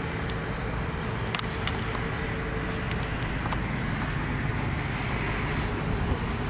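Steady low rumble and hiss of outdoor background noise, with a few faint clicks in the first half.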